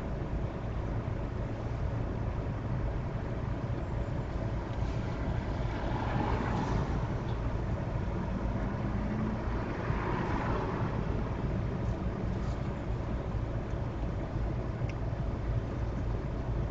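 Steady low rumble of idling traffic heard from inside a car at a standstill, with two louder swells from vehicles moving alongside about six and ten seconds in.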